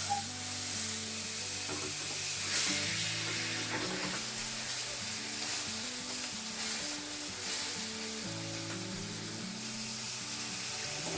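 Salmon steak frying in a hot pan, a steady sizzle just after it has been flipped. Background music with held notes that change in steps plays underneath.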